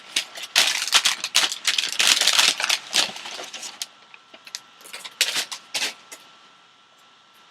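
Crinkling and rustling of plastic packaging handled by hand: dense for the first three seconds, then scattered crackles with a few louder ones between about five and six seconds, dying away toward the end.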